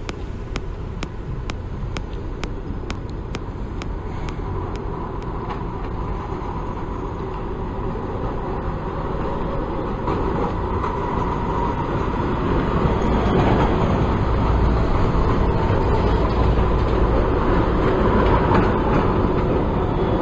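Alstom Citadis 403 tram approaching on a curve, its running and wheel-on-rail noise growing steadily louder and peaking in the second half. In the first few seconds faint regular ticks come about three a second and fade out.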